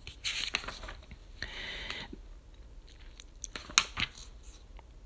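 Quiet rustling and small clicks close to the microphone, with one sharper click about four seconds in.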